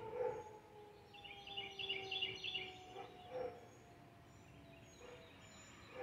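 Outdoor tornado siren winding down at the end of its monthly test: a slowly falling tone that fades away over several seconds. Birds chirp briefly about a second in.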